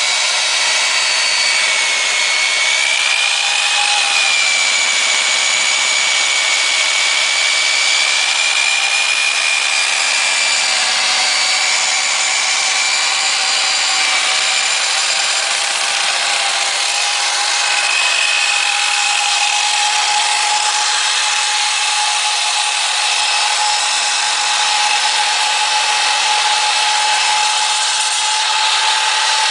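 Kor-It K804 core drill's 1500-watt electric motor running continuously, with a steady whine over a hiss, its pitch drifting slightly up and down.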